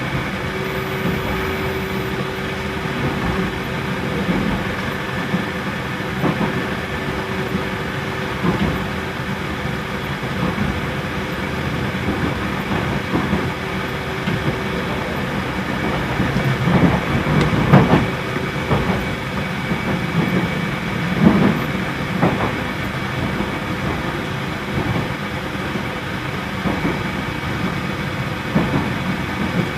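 Running noise inside a JR Central 313 series electric train in motion: a steady rumble of wheels on rail under loud air-conditioning noise. A steady hum sounds for about the first half, and a few short knocks come around the middle.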